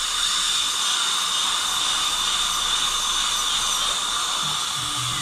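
Dental drill handpiece whining at a steady high pitch as it grinds adjustments into 3D-printed trial teeth in the mouth, over the hiss of the suction tube.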